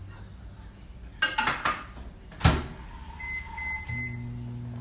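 Microwave oven being worked: a few clicks and a sharp knock as the door shuts about two and a half seconds in, then a few short keypad beeps, and a steady low hum as the oven starts running near the end.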